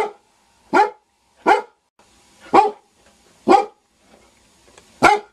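A dog barking: six single, loud barks about a second apart, with a longer pause before the last one.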